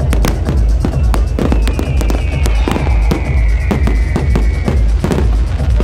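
Fireworks crackling and popping in rapid cracks over loud electronic dance music with a heavy, pulsing bass beat. A high whistle, sliding slightly down in pitch, runs for about three seconds through the middle.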